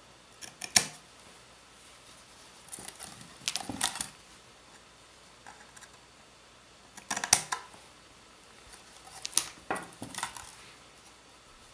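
Scissors snipping through the ceramic fiber paper on a 3D-printer heated bed, cutting off its corners, with handling of the bed in between. The snips and clicks come in a few short clusters, the sharpest about a second in and about seven seconds in.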